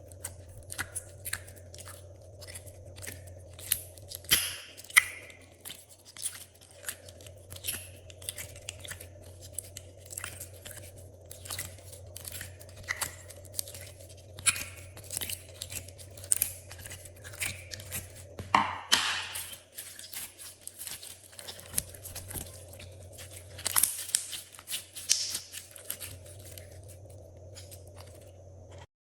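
Glossy slime being worked by hand, with irregular sticky clicks, pops and crackles. The crackling is densest about nineteen seconds in. A steady low hum runs underneath.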